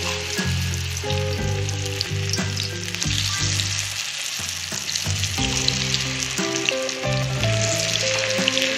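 Batter-coated cauliflower florets deep-frying in hot oil in a kadai, sizzling steadily with small pops, with background music under it.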